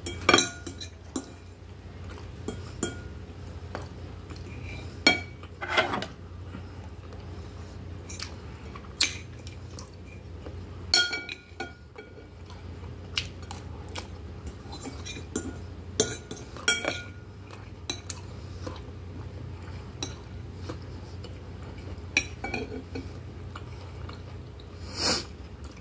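Metal fork and knife clinking and scraping against a glass plate in scattered sharp clicks, over a steady low hum.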